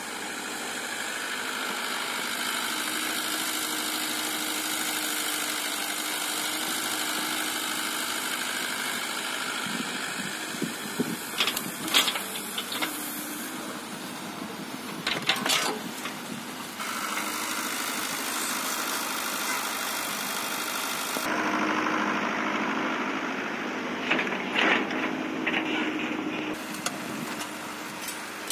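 Komatsu PC78US-11 compact hydraulic excavator's diesel engine running steadily as the machine digs and dumps rocky soil. Clusters of sharp knocks and clatter from the bucket working through rocks and earth come at several points, loudest about twelve seconds in.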